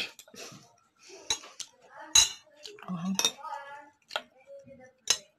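Metal fork and spoon clinking against a dish: about six sharp clinks spaced roughly a second apart, the loudest about two seconds in.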